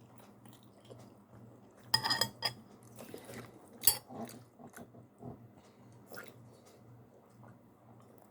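Close-up eating sounds from a mouth chewing instant ramen noodles: scattered wet chewing noises and short clicks, two louder sharp ones about two and four seconds in, over a faint steady low hum.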